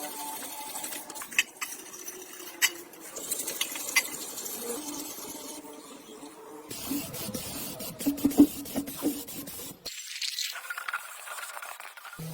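Hand work on metal parts: scattered sharp clinks and knocks over scraping noise. The sound changes abruptly a few times, as cut-together clips.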